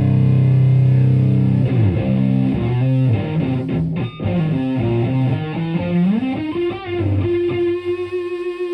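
Distorted electric guitar: a Stratocaster through a Rat-style "Rattus" distortion pedal into a Marshall Plexi head and 4x12 cabinet. A held chord rings out, then a single-note lead line with a bend up about six seconds in, ending on a long held note.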